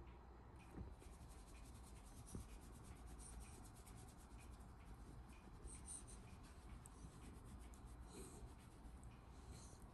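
Faint, continuous rubbing of a hand stroking a Shiba Inu's thick fur, a soft scratchy rasp starting about half a second in.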